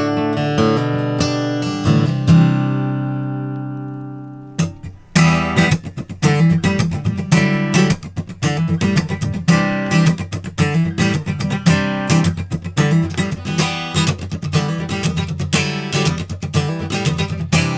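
Taylor 214ce steel-string acoustic guitar being played: a chord rings out and fades over about two seconds, then after a sudden change the guitar is played fast with quick strummed and picked notes. The comparison takes are played partly with the original bridge pins and partly with solid brass bridge pins, which give a tighter, brighter, more focused tone with less boom and sustain.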